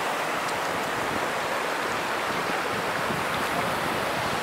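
Steady rush of a mountain creek flowing over rocks.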